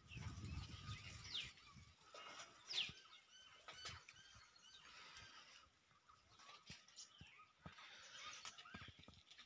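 Faint bird chirps: a few short, falling high chirps about one and a half and three seconds in, and softer scattered twitters later. A soft low rumble sits under the first second.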